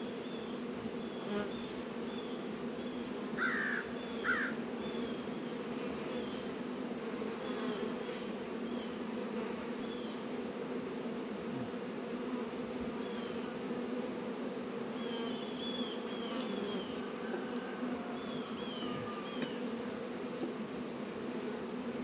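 Steady hum of many honey bees flying around an opened hive, a low drone with a higher overtone. Scattered short high chirps sound over it, with two brief louder ones about four seconds in.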